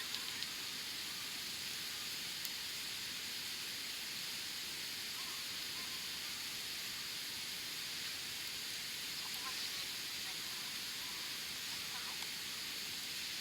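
Wood campfire burning on bare ground: a steady hiss with a few faint crackles and pops.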